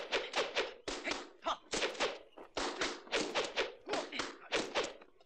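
Rapid run of dubbed kung fu film fight sound effects: sharp punch and staff-strike whacks, about five hits a second.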